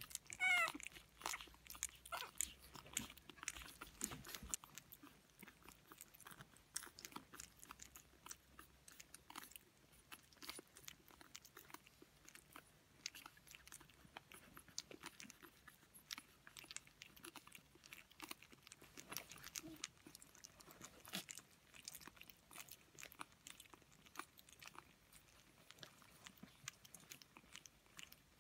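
Three-week-old pug puppies eating soft, wet minced food from a plate: a steady run of small smacking, licking and chewing clicks. There is a brief high squeak about half a second in, the loudest moment.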